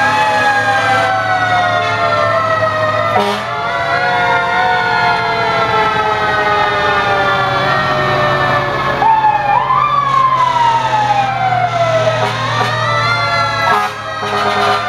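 Siren on a Pirsch tractor-drawn aerial ladder fire truck, repeatedly climbing quickly in pitch and then sliding slowly down, with a steady low rumble from the truck underneath.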